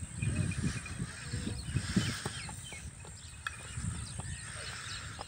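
Small birds chirping and trilling in farmland, over an uneven low rumble.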